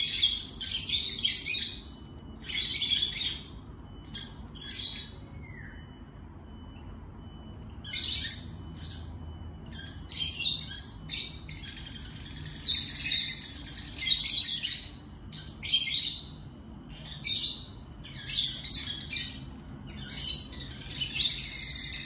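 Rosy-faced lovebird chirping and chattering in high-pitched bursts with short pauses between them, the longest run of chatter from about ten to fifteen seconds in.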